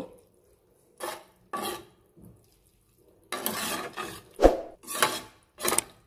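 A metal spoon stirring spaghetti in milk in a metal pot, scraping the pot in a series of short strokes. There is one sharp knock about four and a half seconds in.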